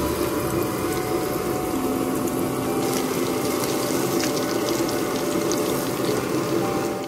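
Breaded noodle cutlets deep-frying in hot oil in a steel pot, a steady sizzle full of fine crackles.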